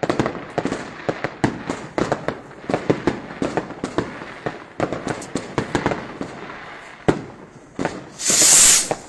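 New Year fireworks and firecrackers going off in a rapid, irregular string of bangs and pops. Near the end comes a loud hiss lasting under a second.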